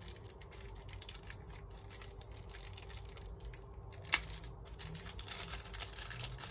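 Small clear plastic packet crinkling and rustling in the hands as a fuse is unwrapped, with one sharp click about four seconds in.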